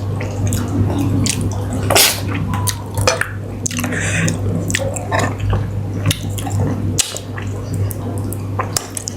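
Close-up wet eating sounds as a sea catfish head is sucked and chewed: irregular lip smacks, sucks and small wet clicks, over a steady low hum.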